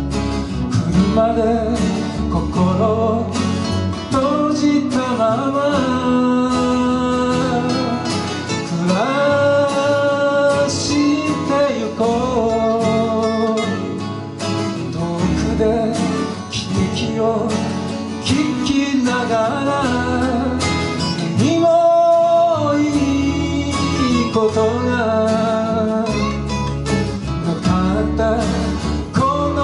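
A small acoustic band playing live: several guitars strummed and picked together while a man sings the melody into a microphone.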